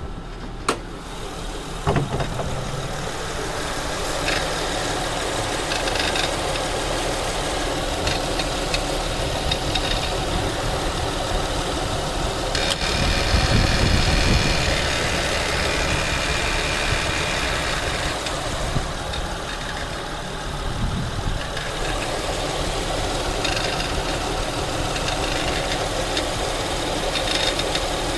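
2008 Acura TL's 3.2-litre V6 idling with a rattle from the passenger side near the serpentine belt, a noise that comes in when the AC fan kicks on. Two sharp clicks sound near the start, and the sound grows louder for several seconds about halfway through.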